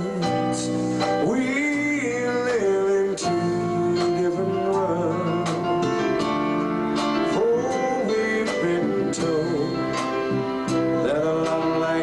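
Male singer singing a slow ballad into a microphone over instrumental accompaniment, amplified through a PA system.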